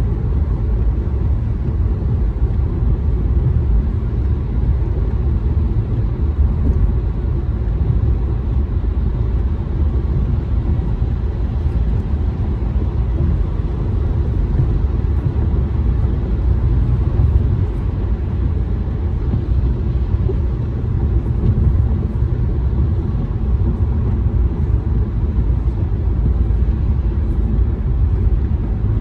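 Steady low rumble of a car cruising on a wet freeway, heard from inside the cabin: tyre and road noise with engine drone.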